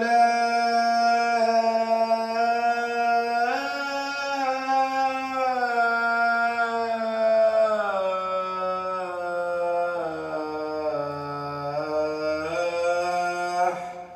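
A muezzin chanting the adhan, the Islamic call to prayer, solo into a microphone. It is one long, unbroken melismatic phrase whose pitch sinks lower through its second half and lifts again just before it stops near the end.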